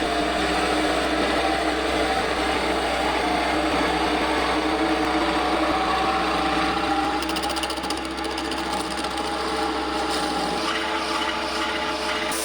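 An electric power tool's motor running steadily as a new wooden handle is shaped. Its hum shifts in pitch about ten seconds in.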